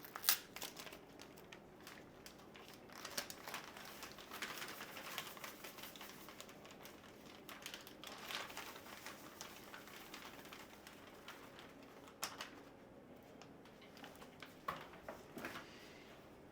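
Faint kitchen food-prep handling: scattered light taps, clicks and rustles, with a sharper tap just after the start and a few more later on.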